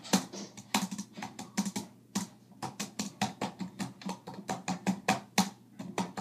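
Typing on an HP laptop keyboard: quick, irregular keystroke clicks, several a second.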